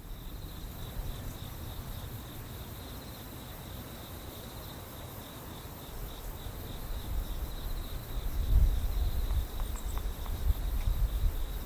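Crickets trilling steadily in a high, pulsing chorus over a low rumble that grows louder about two-thirds of the way through, with a few faint clicks near the end.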